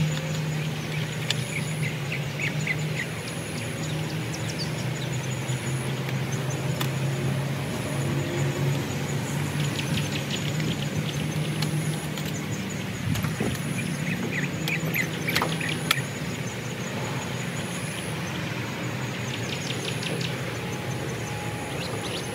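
Engine idling as a steady low hum that weakens about halfway through, with birds chirping.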